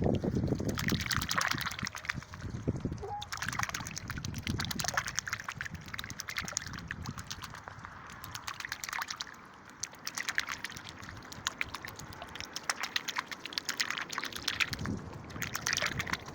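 A hybrid Canada–Chinese goose dabbling dandelions out of water with its bill, in bouts of rapid clicking, slurping and sloshing.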